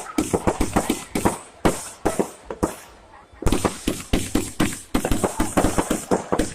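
A burning stock of fireworks going off uncontrollably: a rapid, irregular string of sharp firecracker bangs, several a second, with a short lull about three seconds in before they start again.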